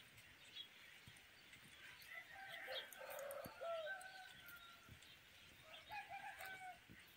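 Rooster crowing faintly, twice: a longer crow a little after two seconds in and a shorter one near the end.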